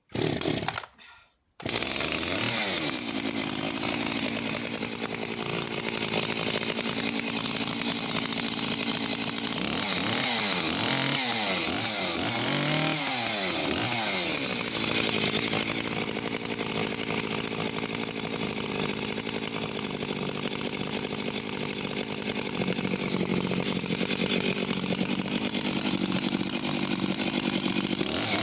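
Echo CS-6701 two-stroke chainsaw starting about two seconds in and running steadily, its throttle blipped a few times so the engine note rises and falls, mostly around the middle.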